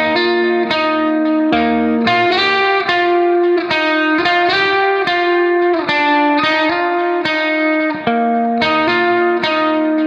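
Background music: a plucked guitar tune, its notes struck in a steady rhythm.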